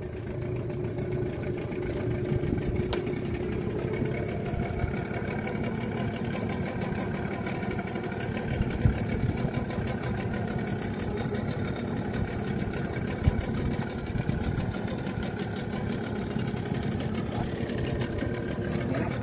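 Boat engine idling steadily, a low even hum, with a couple of short knocks.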